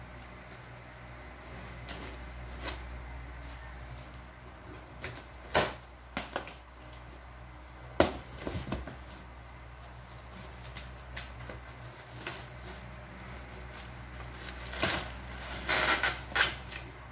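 Cardboard shipping box being opened by hand: packing tape cut and the flaps pulled open, with scattered knocks and scrapes of the cardboard. Near the end the white packing wrap inside rustles and crinkles as it is pulled out.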